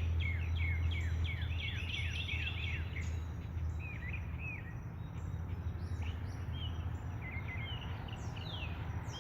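Wild songbirds singing: a quick run of repeated down-slurred whistled notes for the first three seconds, then scattered notes, over a steady low hum.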